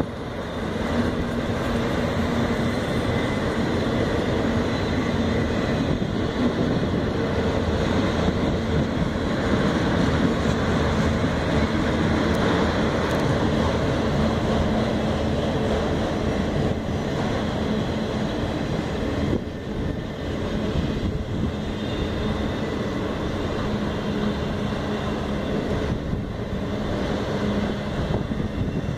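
Freight train of empty auto rack cars rolling past, steel wheels on the rails making a steady rumble with a faint constant hum.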